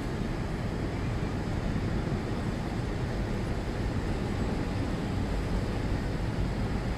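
Steady rushing roar of the Rhine Falls and the churning river water below it, heard from an open tour boat, with wind buffeting the microphone.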